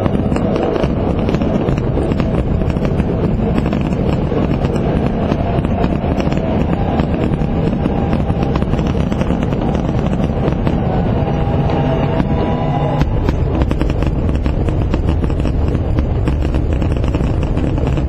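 Fireworks grand finale: a dense, unbroken barrage of shell bursts and crackling, one explosion running into the next.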